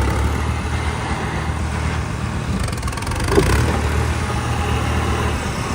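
New Holland 3630 tractor's diesel engine idling with a steady low hum, with one short louder sound about three and a half seconds in.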